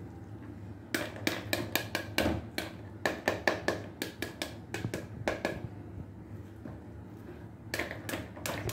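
A metal spoon smacking the rind of a pomegranate section held over a bowl, knocking the seeds loose so they fall into the bowl. The sharp taps come about four a second for several seconds, stop briefly, then start again near the end.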